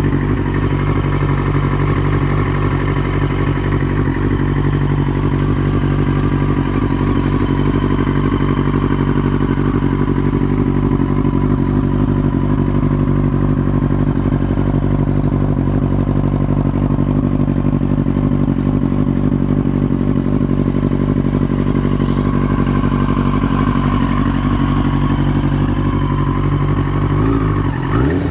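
1999 Yamaha YZF-R6's 600 cc inline-four engine idling steadily, then the revs start to rise near the end as the throttle is blipped.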